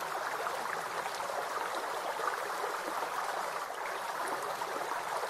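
Steady rushing sound of running water, like a stream, holding an even level throughout.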